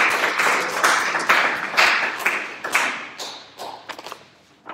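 Applause from a small audience of people clapping by hand. It is dense at first, thins over the last second or so to a few scattered claps, and dies away.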